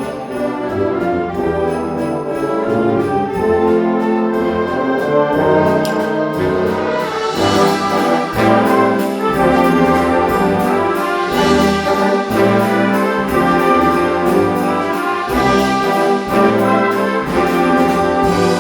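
Community concert band playing a holiday piece, with the brass to the fore over a steady, quick beat of high percussion ticks.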